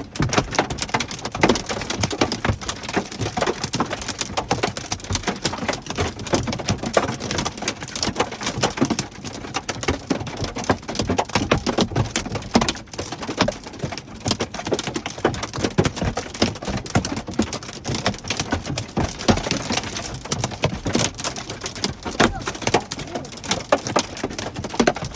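Hailstorm: a constant, dense rattle of hailstones and rain striking hard surfaces, many sharp hits every second without a break.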